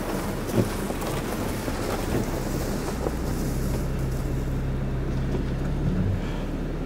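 Car driving slowly on a snowy, icy gravel driveway: a steady hiss of tyre and road noise, with a low engine hum that holds steady from about halfway through, and wind buffeting a microphone on the hood.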